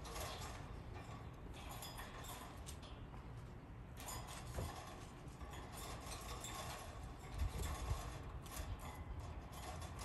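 Budgerigars chattering in scratchy, clicky bursts, with a few low knocks around the middle and near the end.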